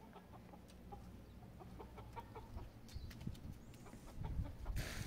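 Chickens clucking faintly, with low thumps from about three seconds in and a brief loud rustle near the end.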